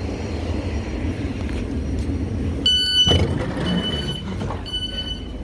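Low train rumble, then a train's door warning beeper sounding three times about a second apart, with a knock near the first beep.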